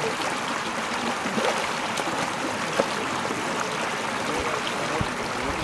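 Shallow stream water running steadily over stones, with small bubbling gurgles.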